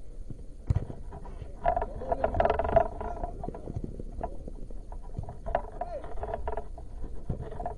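Indistinct voices in two short spells, over a low rumble with scattered knocks.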